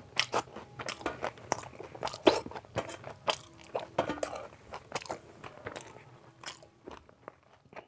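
Close-miked sounds of a person eating curry and rice by hand: wet chewing and mouth clicks and smacks at an irregular pace, with fingers scraping the last food off a steel plate. The sounds thin out and fade near the end.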